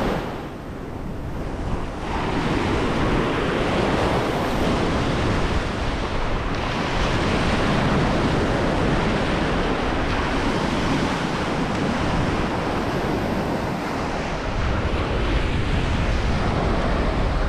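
Small ocean waves breaking and washing up the beach in the shallows, with wind buffeting the microphone.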